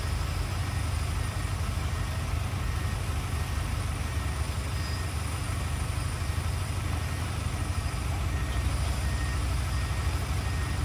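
Heavy diesel machinery engine running steadily under load, with a reversing alarm beeping at an even pace, about once a second.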